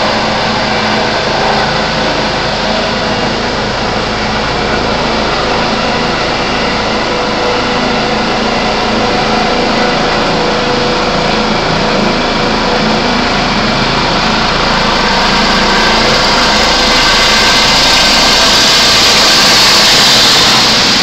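Helicopter flying close by: a steady engine and rotor noise that grows louder in the last few seconds, with a stronger high whine.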